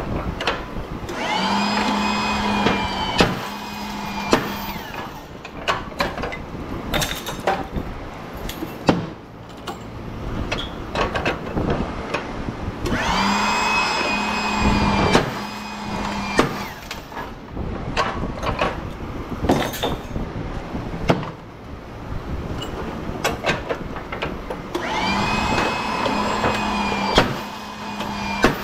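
A motor-driven tool runs in three bursts of about three seconds each, roughly twelve seconds apart, rising in pitch as it spins up and then holding steady. Sharp knocks and clatter come between the bursts.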